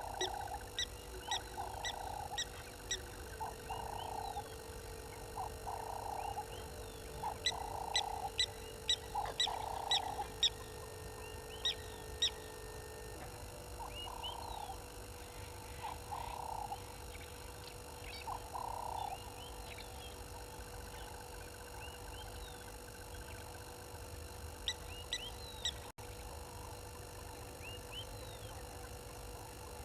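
Repeated animal calls, about one a second for the first twenty seconds and then sparser, with short high chirps over them and a faint steady hum.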